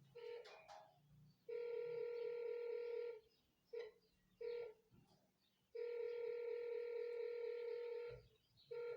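Satellite finder meter beeping a steady tone, in four short beeps and two longer ones of about one and a half and two and a half seconds, as the dish is turned onto the satellite: the tone sounds when the meter picks up the StarTimes signal.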